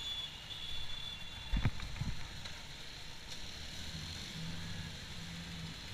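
Street traffic at a junction: motorbikes, scooters and cars running and idling as an even hum of noise, with two short low thumps around two seconds in.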